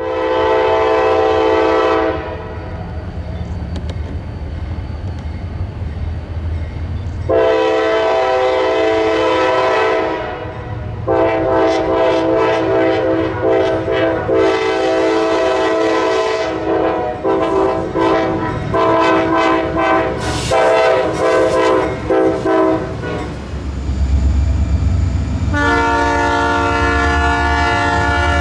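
Freight locomotive air horn sounding a long horn show: a two-second blast, a longer blast, a long near-continuous stretch, then a run of short choppy toots, all over the low rumble of the passing train. Near the end a horn with a different chord starts up and holds.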